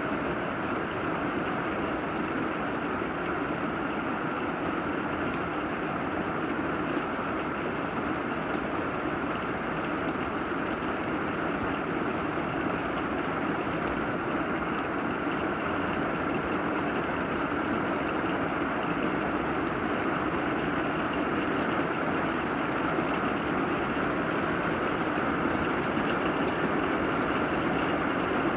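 Steady rain falling, a constant even hiss with no individual drops standing out.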